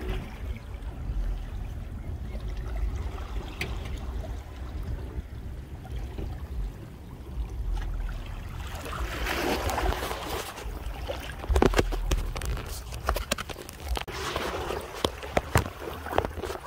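Small waves lapping and trickling among the jetty rocks, growing louder from about nine seconds in, over a low rumble. Scattered clicks and knocks come in the second half.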